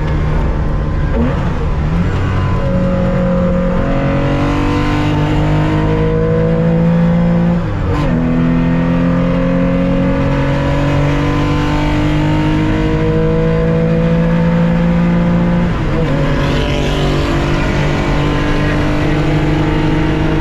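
Race car engine heard onboard, its pitch climbing steadily through the revs in long pulls, then dropping sharply at each upshift, about 8 and 16 seconds in.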